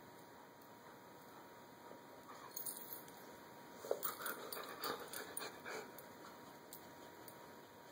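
Two dogs nuzzling and licking each other: a run of short, soft mouth and licking sounds that starts a few seconds in and lasts about three seconds.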